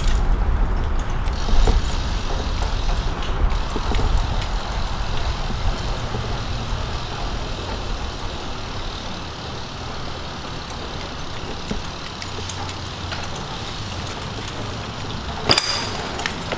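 BMX bike tyres rolling on smooth concrete: a steady low rumble that eases off gradually, with a single sharp knock near the end.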